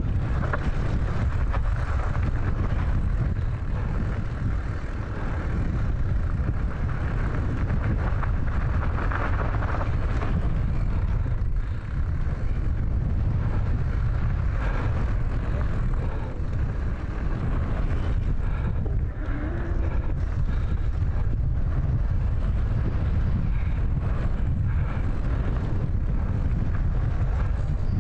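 Enduro motorcycle running along a trail, with steady wind rumble buffeting the microphone.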